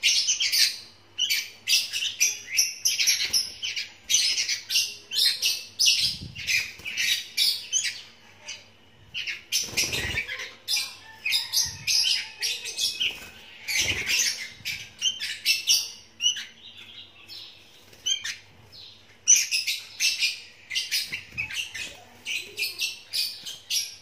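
Young sooty-headed bulbuls, about 35 days old, chirping rapidly and high, several chirps a second, with two short pauses. A few dull thumps sound among the chirps.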